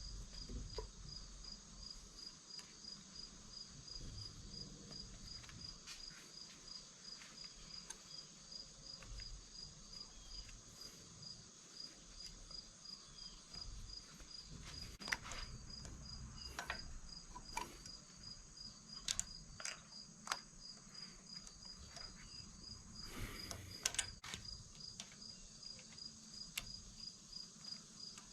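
A cricket chirping steadily in an even pulse, with scattered sharp clicks and taps of hand tools working on the engine's valve springs and seals.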